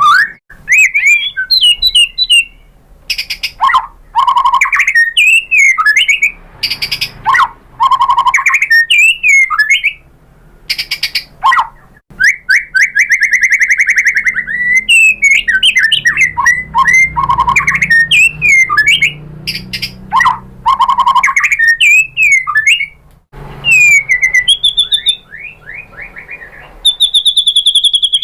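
White-rumped shama singing a loud, varied song of gliding whistles, slurred notes and rapid trills, in phrases broken by short pauses.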